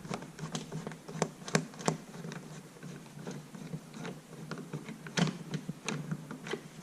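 Screwdriver backing a screw out of a car's rear door panel: irregular small clicks and scrapes, a few sharper ticks about a second and a half in and again past five seconds.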